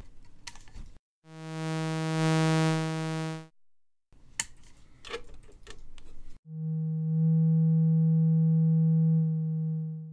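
Two steady low synthesizer tones at the same pitch through a DIY Eurorack mixer, each swelling up and fading back down: first a bright tone full of overtones, then, after a few clicks of patch cables, the purer tone of a self-oscillating MS-20-style filter.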